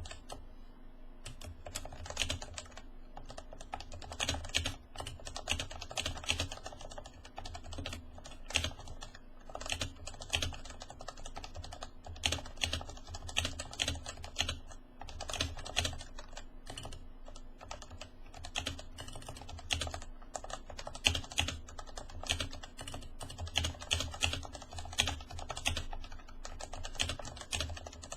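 Continuous fast typing on a Leopold FC660C keyboard with plate-mounted Topre capacitive switches (rubber domes over springs) and PBT keycaps, at about 63 words per minute. The keystrokes come as a dense, uneven stream of soft clicks.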